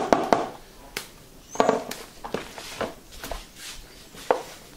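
Hands kneading and squeezing cornmeal dough in a bowl, giving irregular soft slaps and squelches about one or two a second. The first, right at the start, is the loudest.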